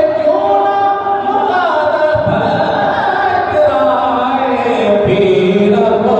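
A man singing a devotional Urdu kalaam into a microphone, with long, slowly gliding held notes.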